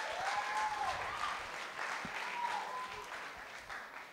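Audience clapping, with a few voices calling out over it, dying away.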